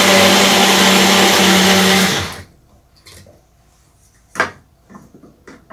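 Countertop blender motor running steadily at speed with an even hum, whipping oil into mayonnaise to make it emulsify and thicken. It cuts off about two seconds in, and a single sharp knock follows a couple of seconds later.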